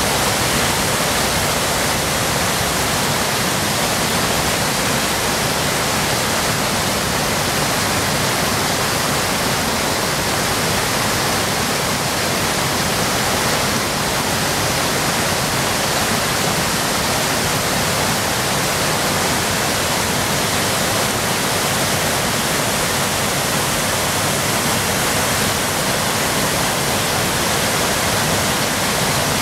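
Waterfall crashing into its pool: a loud, steady rush of falling water.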